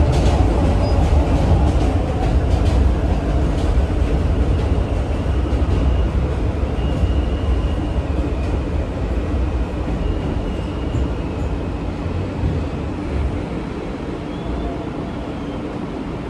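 R160A-1 subway car running on elevated track, heard from inside the car: a steady low rumble that eases off over the second half as the train slows. Faint high tones come and go midway.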